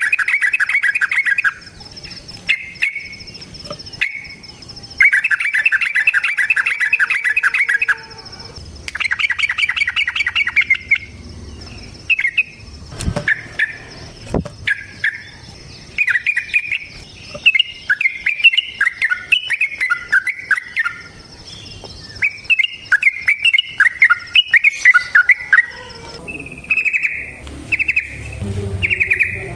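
Yellow-vented bulbul (trucukan) singing its rapid rolling trills, several bursts of a second or more each, with runs of quick chattering notes in between. A faint steady high tone lies underneath.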